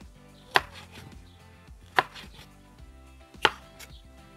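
Kitchen knife dicing a red bell pepper on a wooden cutting board: three sharp knocks of the blade on the board, about a second and a half apart.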